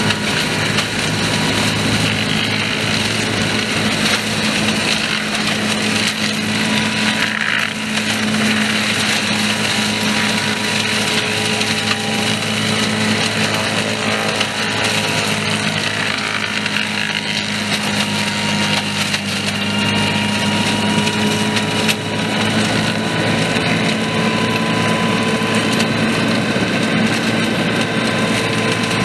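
Kraffter tractor-mounted forestry mulcher running steadily, its PTO-driven rotor whirring as it chews through dry brush and small branches, over the steady hum of the tractor engine under load.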